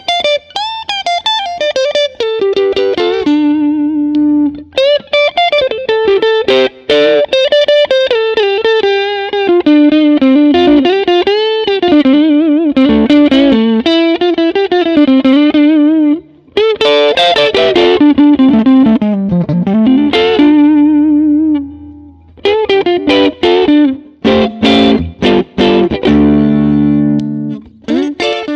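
Harley Benton SC-DLX electric guitar with Tesla split-coil pickups, played through a Hotone Ampero One modeler with a clean tone: single-note lead phrases with vibrato and string bends, moving into strummed chords near the end.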